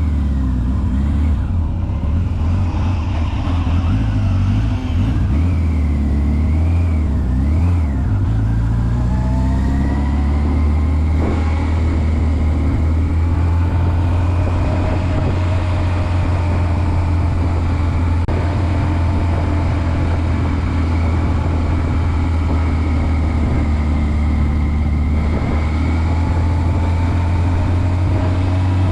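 Motorcycle engine running at speed; its pitch rises for a few seconds about a third of the way in, then holds steady.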